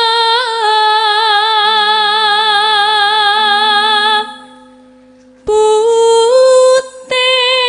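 A sinden, a Javanese female gamelan singer, singing long held notes with a wavering vibrato into a microphone. She breaks off about four seconds in and starts again over a second later, stepping up to a higher note, with a faint low instrument tone held underneath.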